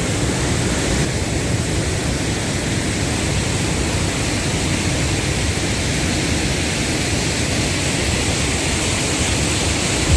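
Waterfall rushing, a steady unbroken noise of falling water.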